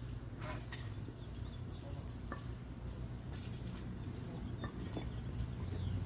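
Scattered light rustles and a few sharp clicks over a steady low rumble.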